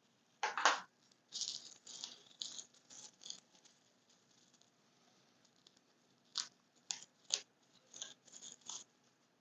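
Small objects being handled on a tabletop: a knock about half a second in, a run of crackling, rustling handling noise, then several sharp clicks near the end.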